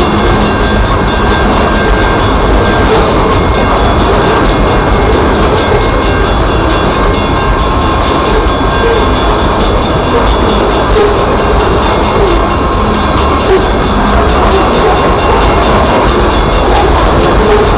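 Union Pacific coal train's hopper cars rolling past: a loud, steady rumble of steel wheels on the rails.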